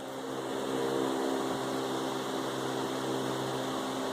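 Steady machine hum of several fixed tones with a light hiss, as from a running household appliance.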